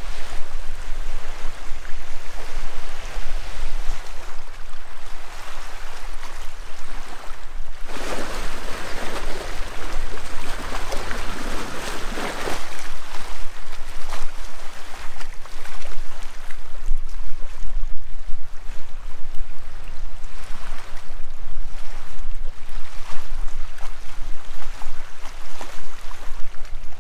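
Wind buffeting the microphone with a steady low rumble, over the rush of small lake waves lapping at the shore. About eight seconds in, the rush swells louder for about four seconds, then settles again.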